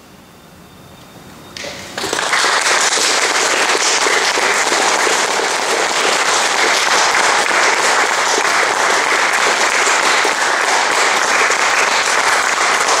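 Audience applauding. After a short lull the clapping starts about two seconds in and keeps up as a dense, steady sound.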